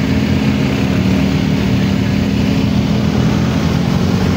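Motorcycle engine running at a steady pace, heard from on board the moving bike, with a steady hum and wind rumbling on the microphone.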